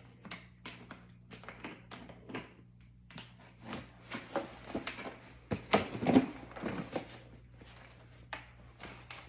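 Cardboard shipping box being opened and its contents handled by hand: a string of rustles, taps and clicks from flaps and packaging, with a couple of sharper knocks about six seconds in.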